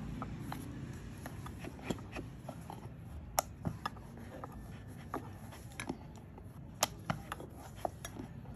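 Rolling pin rolling out a small ball of gujiya dough into a round, with a low rubbing sound and irregular light clicks and knocks, two of them sharper, about three and a half and seven seconds in.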